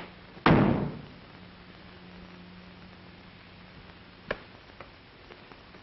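A single loud thump about half a second in that dies away quickly, then the steady low hum and hiss of an old optical film soundtrack, with a sharp click a little past four seconds.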